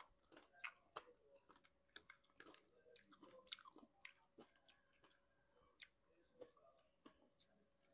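Faint, close-miked chewing of fresh strawberries: many short, irregular wet smacks and clicks of the mouth.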